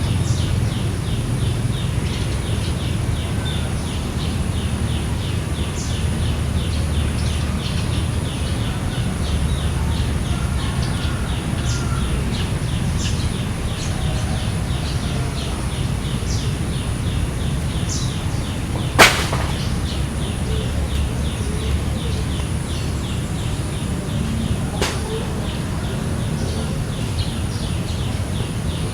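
Outdoor ambience: a steady low rumble with a constant thin high tone over it, and a repeating series of short high chirps about two to three a second. A single sharp snap about two-thirds of the way through, and a fainter one a few seconds later.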